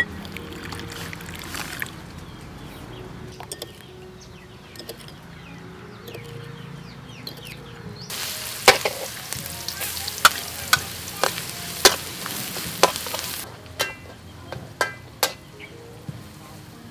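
A metal spoon stirring in a ceramic bowl, clinking against its sides about twice a second over a steady hiss, with a few ringing taps near the end.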